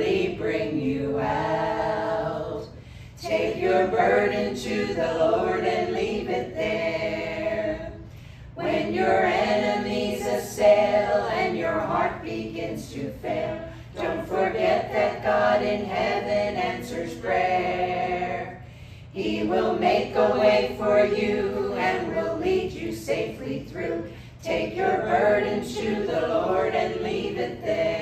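A group of voices singing a hymn together in phrases of about five seconds, with short pauses for breath between them.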